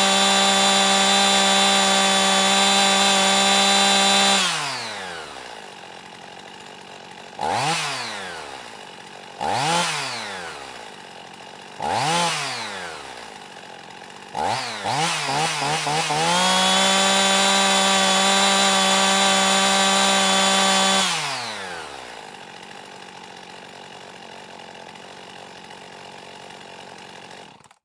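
Chainsaw engine held at full throttle, then dropping back to idle about four seconds in. It is blipped three times, each a quick rise and fall in pitch, then given a flurry of short blips and held at full throttle again for about five seconds. It then winds down to a low idle that stops suddenly near the end.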